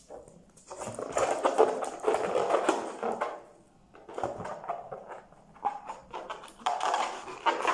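Small pink latex balloon rubbing and squeaking in the fingers as it is twisted and tied, in two stretches with a short pause about halfway.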